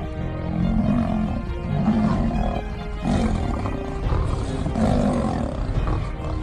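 Big cats roaring and snarling in about four separate low bursts, over background music with sustained notes.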